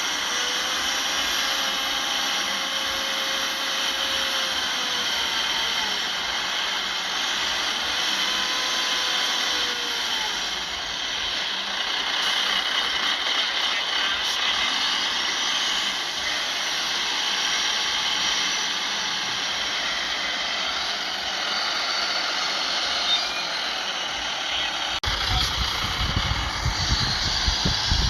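Heavy earthmoving machinery running steadily, with a few faint rising and falling whines. A deeper rumble joins near the end.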